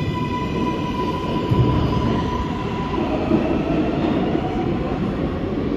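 New York City subway train running through an underground station: a steady rumble of wheels on rails under an electric whine from its motors. A high steady tone fades out about three seconds in, and a lower tone takes over.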